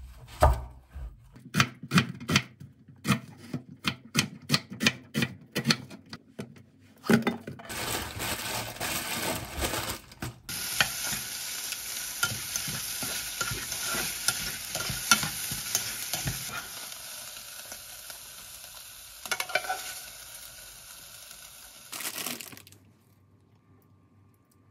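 A knife slicing through an onion on a plastic cutting board, quick repeated strikes for about seven seconds. Then onion and chicken breast sizzling in a pot while being turned with metal tongs, a steady hiss with scattered clicks that slowly dies down and stops near the end.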